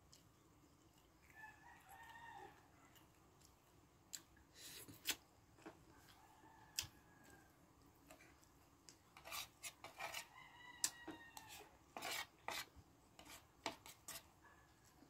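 Spoon and fork clinking and scraping against a plate while eating, in sharp scattered clicks. A rooster crows faintly a few times behind them.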